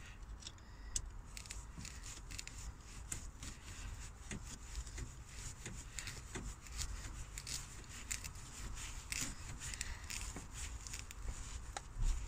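Screwdriver turning the worm screws of jubilee hose clips to tighten them on heater hoses: a run of small, irregular clicks and scrapes.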